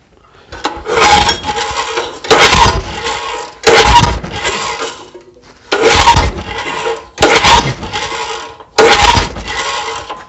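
Recoil starter of a Honda EG1400 generator pulled six times with the choke on, each pull about a second long, the engine cranking over without catching. The owner takes it to be short of fuel.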